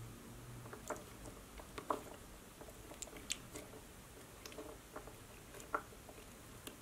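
Sticky red novelty slime tangled with rubbery toy spaghetti noodles, squished and pressed under fingertips: faint, irregular wet clicks and sticky pops.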